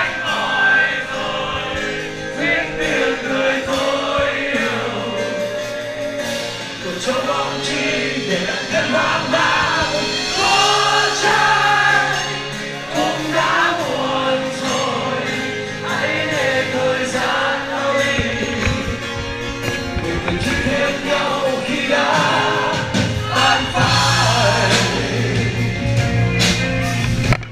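Live rock band performing a song with sung vocals, recorded from the audience with a full, choir-like wash of voices over the music.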